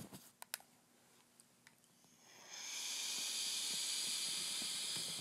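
A vape tank's freshly built coil firing while it is drawn on: a few light clicks, then a steady hiss of sizzling coil and air through the tank that rises about two seconds in and cuts off suddenly at the end.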